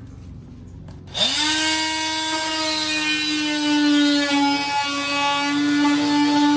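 An oscillating multi-tool is switched on about a second in. Its motor spins up quickly to a steady high whine, which then holds as the blade cuts into honeycomb wall insulation.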